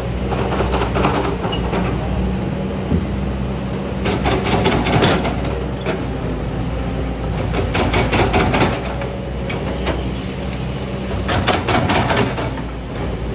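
Hydraulic excavator digging a pond: the diesel engine runs steadily, and four bursts of clattering and scraping come about every three and a half seconds as the bucket works through soil.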